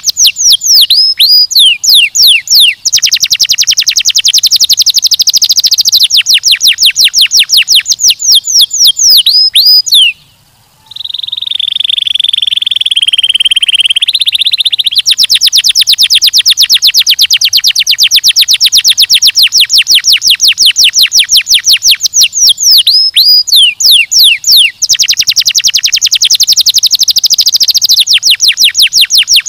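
Domestic canary singing: long, very fast trills of repeated high down-sweeping notes. About ten seconds in the song breaks off briefly, then a held buzzy note runs for a few seconds before the fast trills resume.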